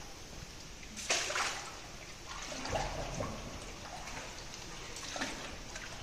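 Water of a slow underground river flowing and splashing around a small boat, with a louder splash about a second in and smaller irregular splashes after it.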